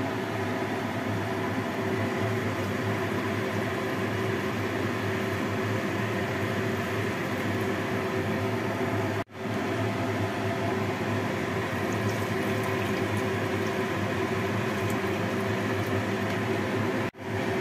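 Steady hiss with a low hum from a glass pot of soup heating on a lit gas stove burner, broken twice by brief dropouts.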